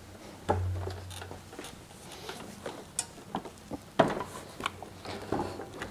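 Toro 22-inch walk-behind lawn mower being lifted by its handle and tipped onto its side on a workbench: scattered knocks and clunks of the mower's body and handle, the loudest about four seconds in. A brief low hum sounds about half a second in.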